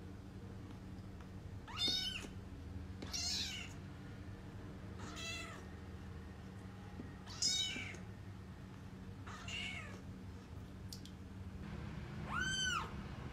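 Young kitten mewing, about six high-pitched cries spaced a couple of seconds apart; the last one rises and falls in pitch.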